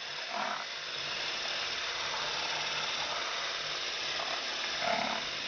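Electric whisk running steadily, its beater whipping eggs, sugar and vanilla in a plastic bowl toward a creamy batter.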